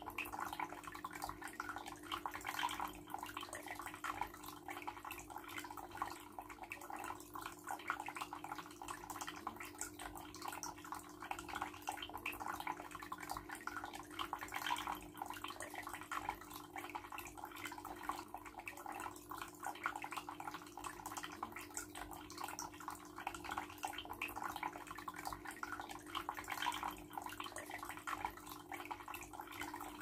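Small homemade tabletop rock fountain running: a thin stream of water trickling and splashing down artificial rock into its basin, with fine drips throughout and a steady low hum underneath.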